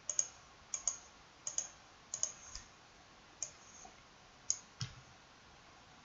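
Faint computer mouse clicks, a dozen or so at irregular intervals, many in quick pairs a fraction of a second apart.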